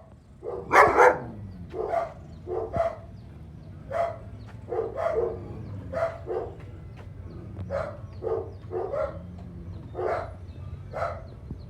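German Shepherd dog barking repeatedly, about one to two barks a second, with a loud cluster of barks about a second in.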